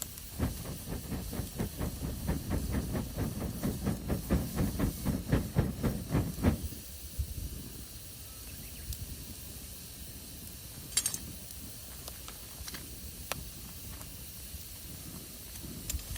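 Campfire hissing steadily with a few scattered pops. For the first six seconds a regular series of soft thuds, about three or four a second, runs under it and then stops abruptly.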